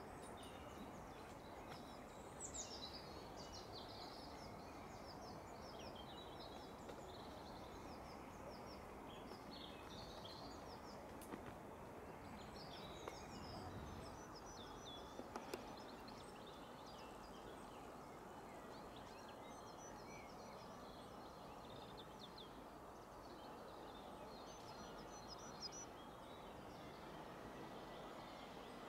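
Several songbirds chirping and trilling over a faint steady background hiss.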